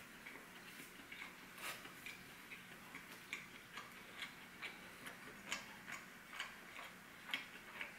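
Faint, crisp chewing of bread and salad leaves: short crunchy clicks about twice a second, some louder than others.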